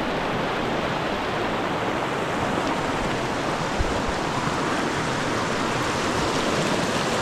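Creek water rushing steadily over rocks, an even hiss of flowing water. One brief low thump about four seconds in.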